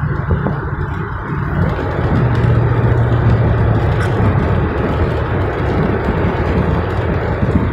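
Steady road and engine noise inside the cab of a Dodge Ram 4x4 pickup cruising on a wet highway, with tyre hiss over a low engine drone. The drone grows stronger for a couple of seconds in the middle.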